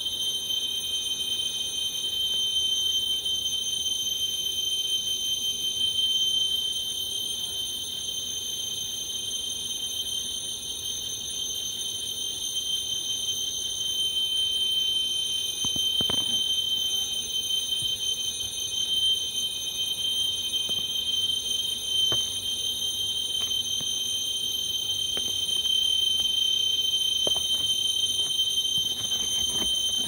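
A chorus of cicadas singing: one steady, unbroken, high-pitched drone.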